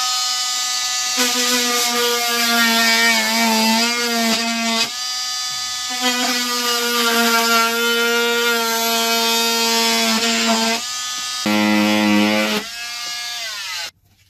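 Corded oscillating multi-tool running and cutting a hole along the straight template lines in a wall panel, its steady buzz wavering in pitch as the blade bites. It eases off briefly about five seconds in, stops for a moment near eleven seconds, runs again and cuts off just before the end.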